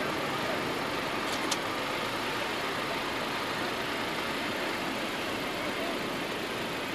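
Steady motor-vehicle engine noise, an engine running at idle, with two faint high clicks about a second and a half in.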